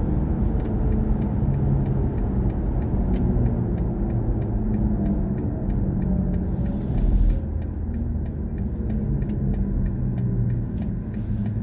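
Steady low road and tyre rumble inside the cabin of a BMW i4 M50, an electric car, driving on a country road, with no engine note. About seven seconds in there is a brief louder rush.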